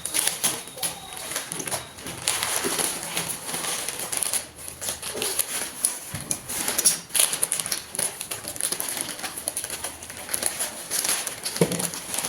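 Irregular clicking, tapping and crinkling, like objects and packaging being handled close by.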